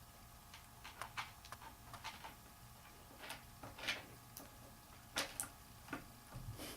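Cockatiels playing, making a scattered run of faint, irregular light clicks and taps.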